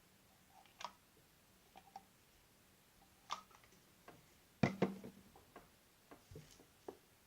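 Small objects handled on a tabletop while preparing slime: scattered light clicks and taps, with a short cluster of louder knocks about two-thirds of the way through.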